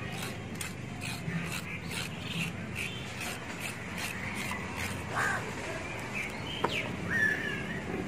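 Small knife scraping the skin off a white radish (mooli) in quick repeated strokes, about three a second, to clean it. In the second half, a few short bird calls are heard.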